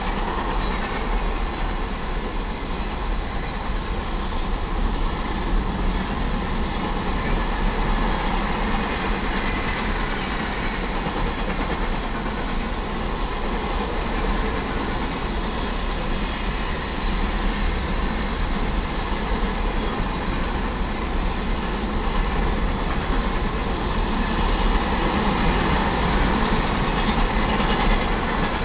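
Hopper cars of a BNSF iron ore train rolling past at a grade crossing: the steady rumble and clatter of steel wheels on the rails, continuous and unchanging.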